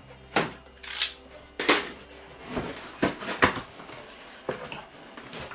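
Cardboard box being opened: a box cutter slitting the sealing tape, then the stiff cardboard lid scraping free as it is pulled open, in a run of about eight short, sharp scrapes and crackles.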